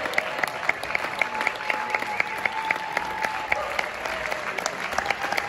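Audience applauding, with many hands clapping in a dense, irregular patter. A thin, steady high tone is held above the clapping through much of it.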